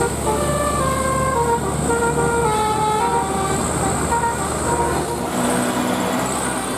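Telolet basuri bus horn playing a quick melody of short notes stepping up and down in pitch, over the bus's engine running.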